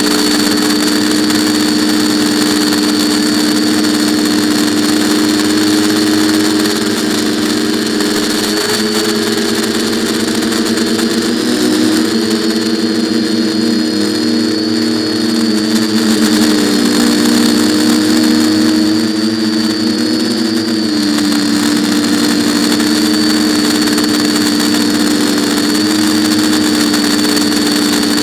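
Quadcopter's electric motors and propellers whirring steadily in flight, heard from the onboard camera. The pitch wavers and shifts a little in the middle as the throttle changes.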